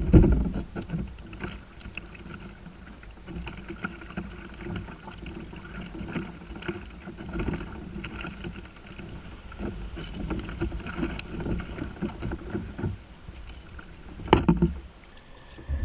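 Canoe being poled down a fast, flooded creek: water rushing along the hull with irregular knocks. A loud thump at the start and another near the end.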